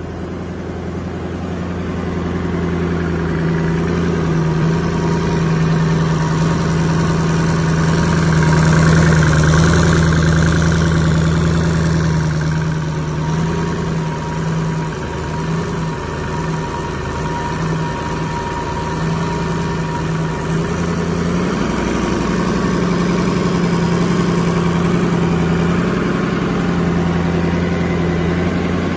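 2006 International VT365 6.0-litre V8 turbo-diesel engine idling steadily.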